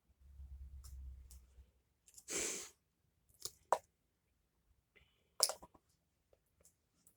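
Faint handling noises of a hair dryer being taken out of its packaging: a low rumble of handling, a short rush of noise, then a few sharp clicks and knocks.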